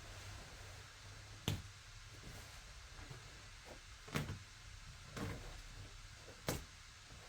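Four short, sharp knocks at uneven intervals, about a second and a half in, near four seconds, after five seconds and after six and a half seconds, over a low steady hum.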